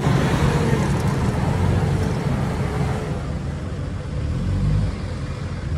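Toyota Land Cruiser VX's engine working hard under load as the 4x4 climbs a steep sandy slope. It eases off a little about three seconds in and swells again shortly before the end.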